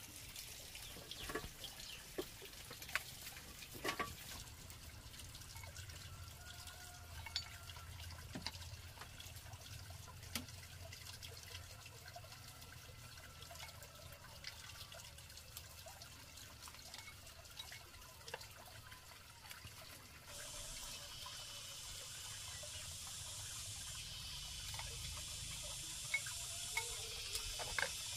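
Faint scattered clicks and light knocks, then about two-thirds of the way in a steady trickle of running water starts and carries on.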